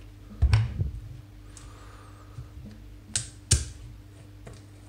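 A few sharp plastic clicks and knocks from a plastic bottle being handled as its screw cap is gripped and twisted: one about half a second in, then two close together past the three-second mark.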